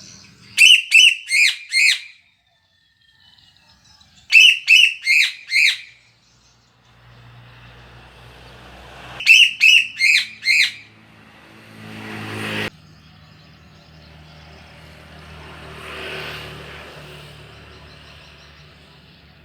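Songbird, the kind keepers call 'sule', giving loud bursts of four or five sharp repeated notes, three times. In the second half a passing vehicle hums and swells in the background.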